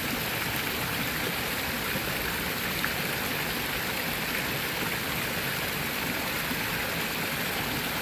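Small stepped rock waterfall splashing into a pond, a steady, unbroken rush of falling water.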